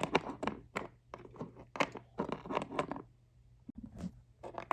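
Rustling, crinkling handling noises: a run of short crackles and scrapes, broken by a brief pause about three seconds in.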